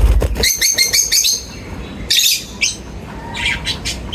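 Lovebirds chirping and squawking: a quick run of high chirps about half a second in, a harsh squawk about two seconds in, and more chirps near the end. A low thud right at the start.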